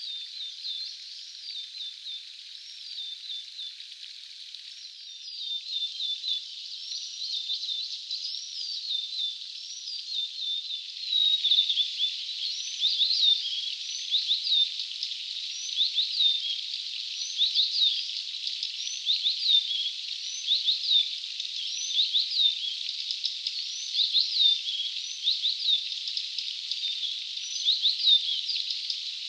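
Male blue-and-white flycatcher giving rapid short high chirps over a steady hiss. The chirps come thicker and louder from about eleven seconds in.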